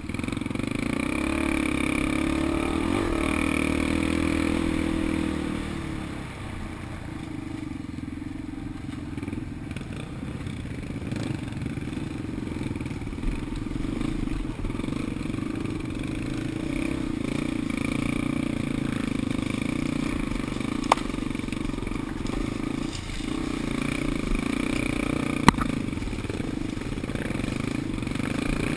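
Vehicle engine running under way, easing off about six seconds in and then picking up again, with rattling and a few sharp knocks from the ride.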